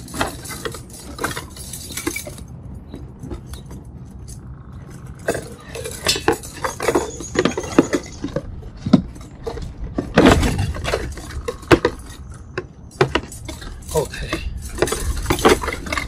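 Steel bicycle spokes clinking and jangling against each other and the hub as they are threaded into the flanges of a hub motor, a scatter of irregular metallic clicks.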